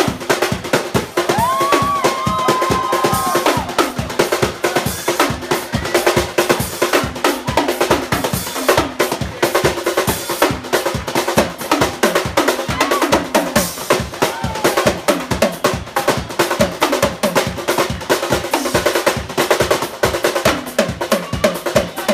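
Drum kit solo played fast and without a break: dense strokes and rolls across the kit.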